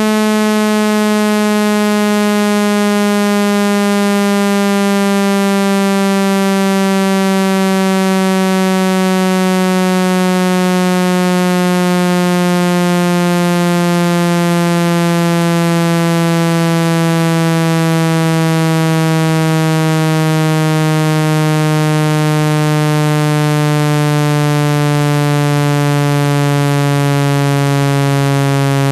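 Loud synthetic speaker-cleaning tone: a single electronic pitch with many overtones, sliding slowly lower. It is played through a phone speaker to shake water and dust out of it.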